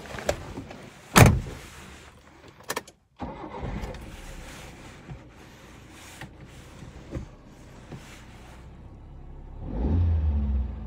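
A loud thump about a second in. Then the Nissan Sunny's engine idles steadily and is revved briefly near the end, rising and settling back.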